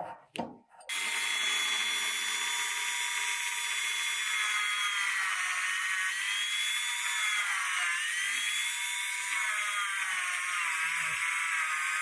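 A high-pitched electric power tool motor starts about a second in and runs steadily. Its pitch sags and recovers several times as it is loaded against the work.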